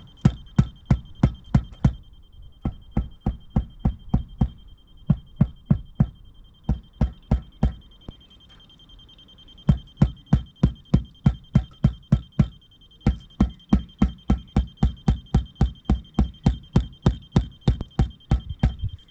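Rubber mallet tapping a paving slab down into its mortar bed, about three or four blows a second in runs with short pauses, the longest about eight seconds in. Underneath, the laser level's receiver gives a steady high-pitched signal that shows how close the slab is to the set height.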